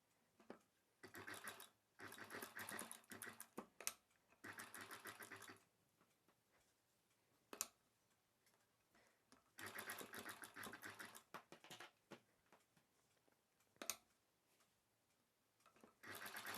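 Sewing machine stitching in several short runs of a second or two each, with a few single clicks in the pauses between runs.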